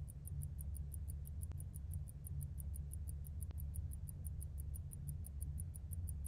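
Mechanical pocket watch ticking, with short, even ticks at about five a second, over a low steady hum.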